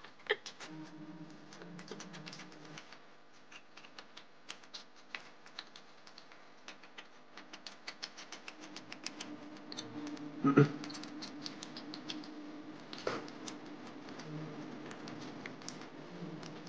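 Close-up eating sounds: many rapid small wet clicks and smacks of chewing dumplings, with two louder clicks about ten and thirteen seconds in, over a faint steady hum.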